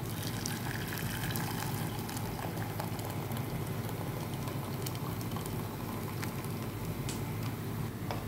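Hot water poured from a kettle into a metal saucepan onto bouillon cubes: a steady splashing fill over a constant low hum, with a couple of sharp clicks near the end.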